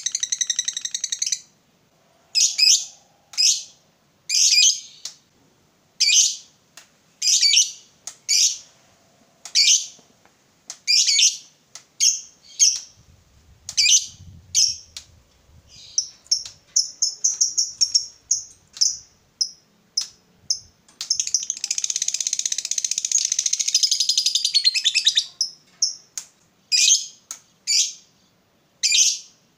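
Caged lovebird calling with sharp, high chirps about once a second. Around the middle comes a quick run of short chirps, then a long, rapid chattering trill of about four seconds: the 'ngekek panjang' long trill that lovebird keepers prize.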